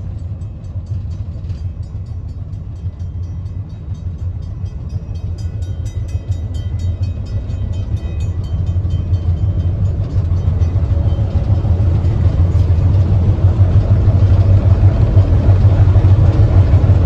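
Train rolling along the track: a steady low rumble that grows louder as it gathers speed, with a fast, fine ticking over it.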